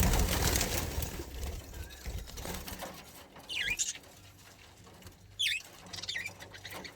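Budgies giving a few short, sharp chirps, three in the second half, after a couple of seconds of rustling and bumping at the start.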